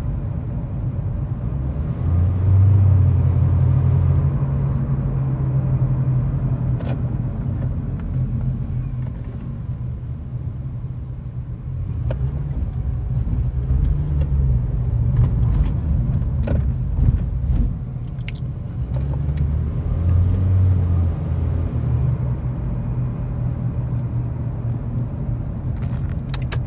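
Low, steady rumble of a car driving, heard from inside the cabin: engine and road noise.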